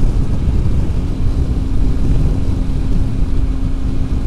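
Motorcycle at highway speed, heard from the rider's microphone: a heavy rush of wind with the Triumph Tiger 800 XRx's three-cylinder engine droning steadily underneath. The engine hum settles a little lower in pitch about a second in.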